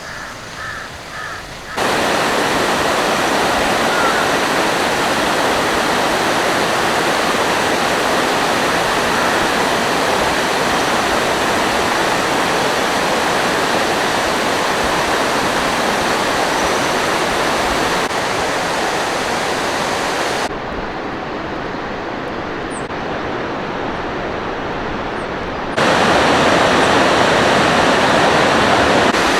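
Loud, steady rushing water, as of a river or waterfall in spate. It starts abruptly about two seconds in and changes level sharply twice, once quieter and once louder.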